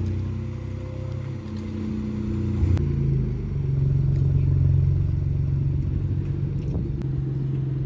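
Car engine running at a steady low speed as the car drives slowly. The engine note steps up in pitch about three seconds in, then holds.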